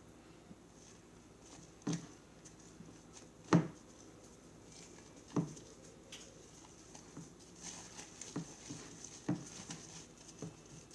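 Stirring a thick glue-and-cornstarch slime mixture in a bowl: a few scattered knocks of the utensil against the bowl, the loudest about three and a half seconds in, over faint soft scraping.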